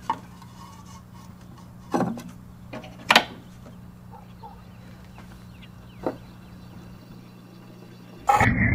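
Four sharp clicks and knocks as a record is set on a cabinet gramophone's turntable and its tone arm is handled. The loudest knock comes about three seconds in. Just before the end the gramophone starts playing loud music.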